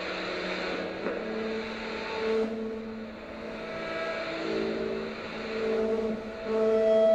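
A cello and a second, smaller bowed string instrument playing long held notes that swell and fade in slow, overlapping waves, the loudest swell near the end.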